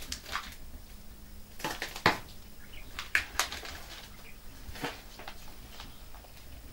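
Caged quail moving about on the litter and at the feeder: a scatter of short, sharp taps and clicks at irregular intervals, the loudest about two seconds in, over a faint steady hum.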